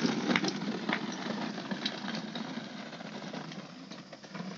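Hard plastic wheels of a toddler's ride-on toy car rumbling and rattling as it rolls down a concrete lane, with scattered clicks, fading as the car moves away.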